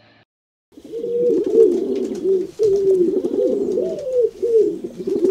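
Several pigeons cooing, their calls overlapping, starting a little under a second in after a moment of silence.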